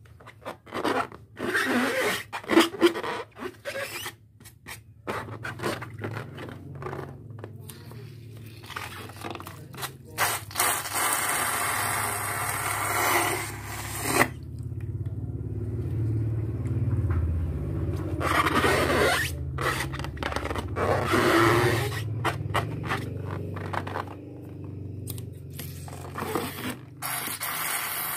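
Balloons being squeezed and rubbed, making rubbery scraping noises in irregular bursts, with a low hum underneath through the middle stretch.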